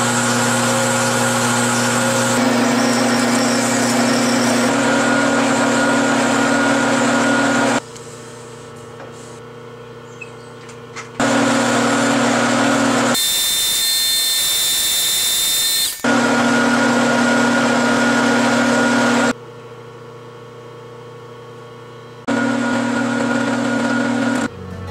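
Metal lathe turning an aluminium bar, running steadily with a hum and a hiss as the tool cuts. The sound changes abruptly several times: twice it drops to the quieter run of the lathe alone for a few seconds, and in the middle there is a brief harsher, hissing stretch with a high whine.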